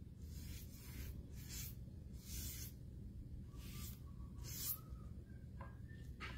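Paintbrush scrubbing paint onto a picture frame: a series of short, scratchy brush strokes, faint, over a low steady hum.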